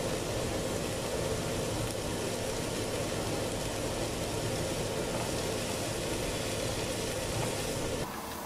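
Thinly sliced onion sizzling steadily in olive oil in a frying pan as it is stirred with a wooden spoon, over a faint steady hum; the sizzle drops in level near the end.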